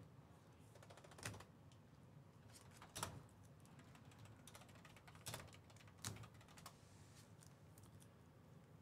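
Faint, scattered clicks of typing on a computer keyboard, about five keystrokes a second or two apart, over near silence.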